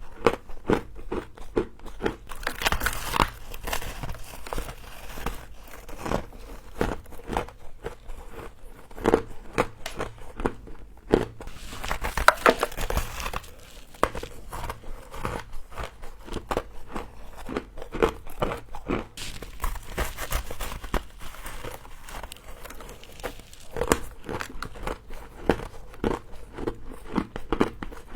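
Close-up biting and chewing of fluffy frost, a dense run of crisp crunches and crackles with no pauses.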